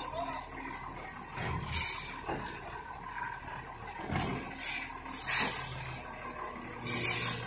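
Truck air brakes letting out short hisses of air several times, with a high-pitched brake squeal lasting about two seconds, over the low running of the truck's engine.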